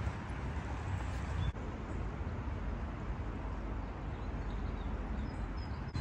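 Steady rushing of a fast-flowing brook below a footbridge, with a low rumble of wind on the microphone.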